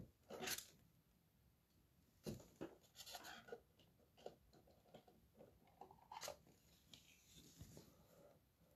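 Near silence with faint, scattered rustles and light clicks of a trading card and clear plastic holders being handled.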